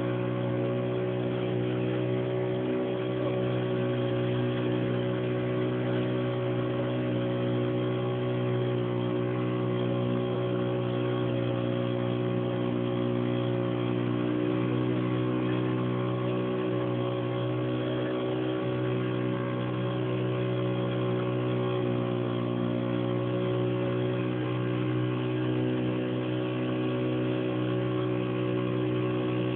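Boat engine running at a steady speed under way on the river, a constant, unchanging drone.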